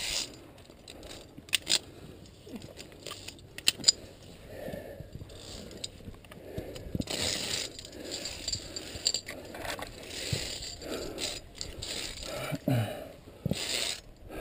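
Via ferrata set carabiners clicking and sliding along a steel safety cable, with sharp metal clicks a couple of times and scraping between them.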